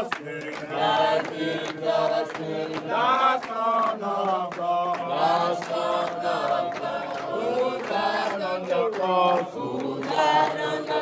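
A group of young voices singing together in chorus, a worship song during morning devotion.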